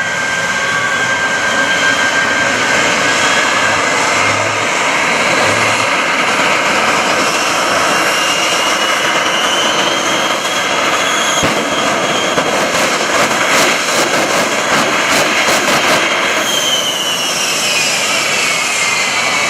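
The Shockwave jet truck's three J34 jet engines run at high power with a loud jet roar. Their whine climbs in pitch through the middle, a rapid crackle of pops comes for a few seconds, and then the whine falls in pitch near the end.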